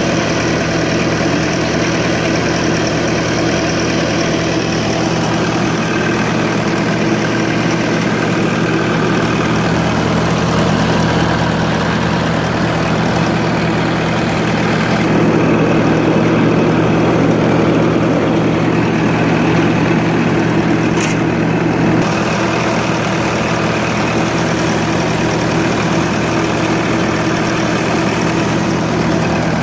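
Diesel engine of a 2014 Bobcat S650 skid steer loader idling steadily, a little louder for several seconds midway, with a brief click near the end of that stretch.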